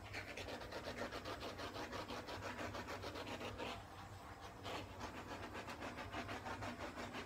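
Handheld torch flame burning with a steady hiss and a rapid flutter, played over a freshly poured acrylic paint pour.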